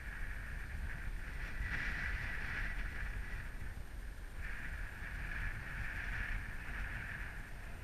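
Gusting wind on the camera microphone: a steady low rumble under a hiss that swells twice with the gusts.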